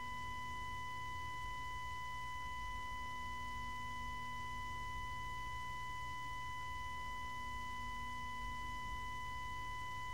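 Steady high electronic test tone of a hijacked TV broadcast, held unbroken over a low hum.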